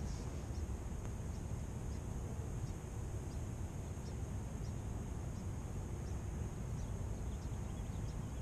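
Riverside ambience: a steady high insect trill with short chirps about every half second, over a low steady rumble of wind on the microphone.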